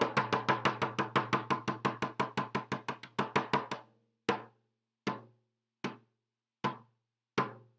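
A percussion instrument struck rapidly, about six or seven beats a second, for about four seconds, then slowing to five single beats with a short ring after each.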